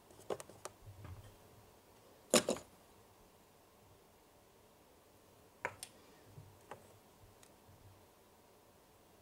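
Small plastic toy kitchen pieces handled by hand: a few light clicks and taps as a tiny bowl, spatula and baking tray are moved. The loudest is a quick double knock about two and a half seconds in.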